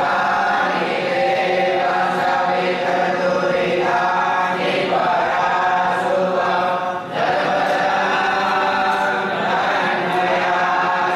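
A group of voices chanting mantras together in unison, with a short break for breath about seven seconds in.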